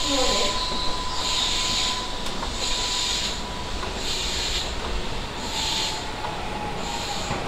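Keihan 3000-series electric train pulling slowly around a curve into a station beside a standing train: a rail rumble with a steady whine, and a high sound that pulses about every second and a quarter.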